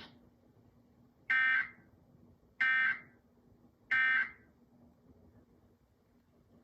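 Emergency Alert System end-of-message (EOM) data bursts: three short, identical bursts of harsh, buzzy digital tones about 1.3 seconds apart. They mark the end of the NOAA Weather Radio alert message.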